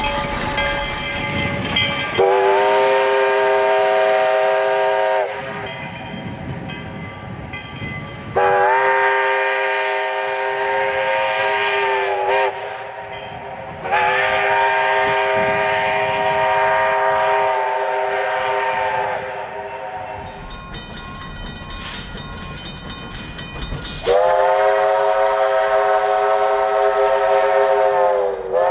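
Steam whistle of Southern Pacific No. 18, a narrow-gauge 4-6-0 ten-wheeler, blown in four long blasts of three to five seconds each, a chime sounding several notes at once that sags in pitch as a blast closes. A fast metallic ringing fills the quieter gap before the last blast.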